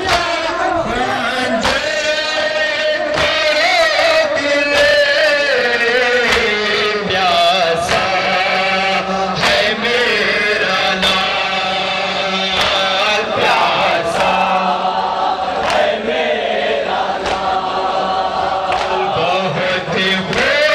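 A group of male mourners chanting a Muharram lament (noha) in unison, loudly and continuously. Sharp slaps from matam, rhythmic chest-beating with the hands, come roughly once a second.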